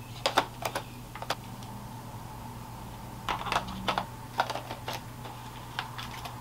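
Irregular clicks and light taps of a DSLR camera body and lens being handled and fitted together, bunched in a few quick groups, over a faint steady hum.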